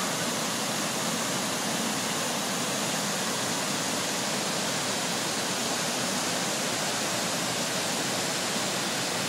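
Waterfall and the whitewater below it: a steady, unbroken rush of falling and churning water.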